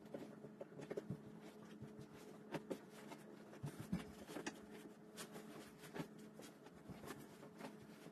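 Bedding being handled while making a bed: scattered soft rustles and light thumps as the sheet is tucked in and a comforter is spread, over a faint steady hum.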